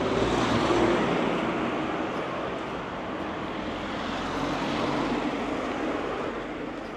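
Road traffic: vehicles passing along a city street. The tyre and engine noise swells twice, once about a second in and again around five seconds in, then fades.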